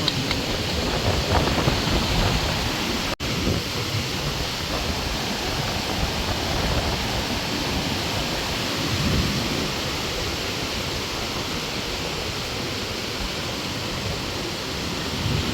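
Strong wind blowing across the microphone, a steady rush with gusty low buffeting. The sound cuts out for an instant about three seconds in.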